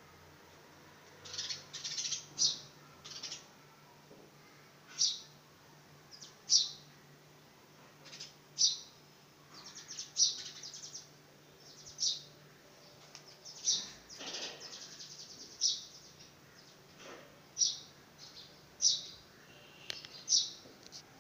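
House sparrow chirping: short, sharp chirps repeated every second or two, some coming in quick little runs.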